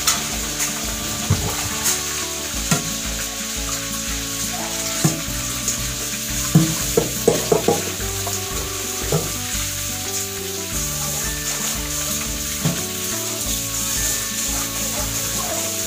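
Kitchen tap water running onto a pan and a metal pot in a stainless-steel sink as they are washed: a steady hiss of water. A cluster of knocks and clinks from the pot being handled comes about six to eight seconds in.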